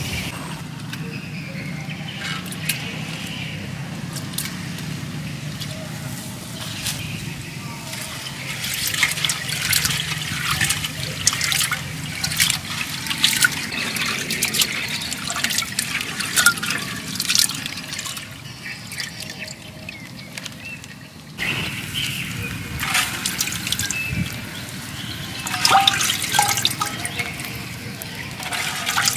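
Water splashing, trickling and dripping as hands work in a clay jar of water, in bursts of many small splashes.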